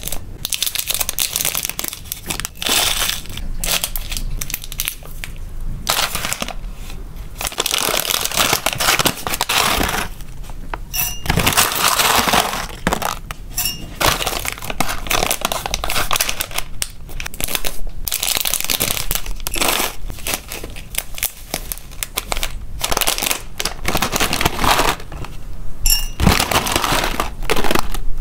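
Plastic and foil snack pouches crinkling and rustling in irregular bursts as they are handled and opened.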